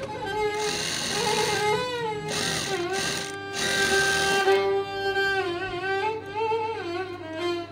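Background music led by a violin melody. Underneath it, in the first half, an electric sewing machine runs in a few short bursts as lace is stitched onto fabric.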